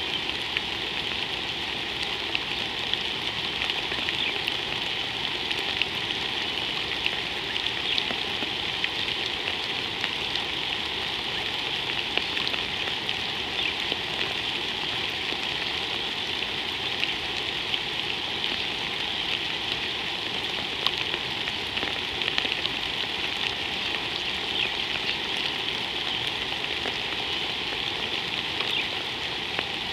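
Steady rain falling, with many small drops ticking close by.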